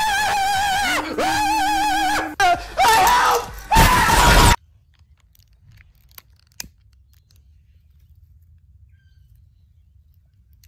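People screaming: several loud, high-pitched screams with a wavering pitch, one after another. They cut off suddenly about four and a half seconds in, leaving faint outdoor background with a few light clicks.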